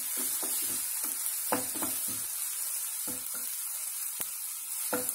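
Chopped onions with ginger-garlic paste frying in oil in a non-stick pan, with a steady high sizzle. A spatula stirs them, giving short scrapes and taps against the pan at irregular intervals.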